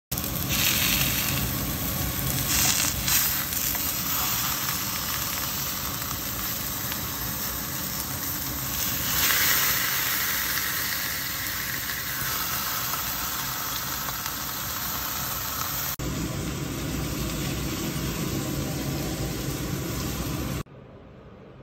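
Beef sizzling on a hot ridged grill pan, a steady frying hiss with a few louder surges, the strongest about nine seconds in. The sound changes about sixteen seconds in and drops away suddenly near the end.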